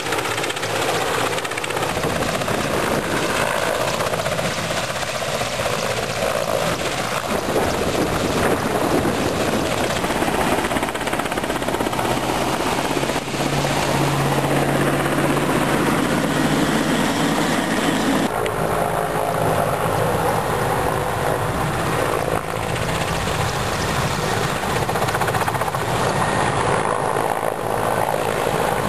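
Helicopter running nearby, a steady rotor chop over continuous engine noise, with a low hum rising out of it for a few seconds midway.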